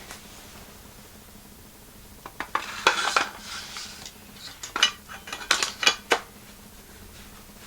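Metal clinking and clicking: a short rattling cluster about two and a half seconds in, then several sharp separate clicks a couple of seconds later.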